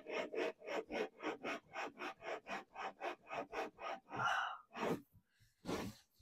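Bronze tapered plug of a Blakes seacock being twisted back and forth by hand in its valve body with valve grinding paste, a rhythmic gritty rasp of about three strokes a second as the plug is lapped to its seat to grind out pitting. The even strokes stop about four seconds in, and a few longer, irregular sounds follow.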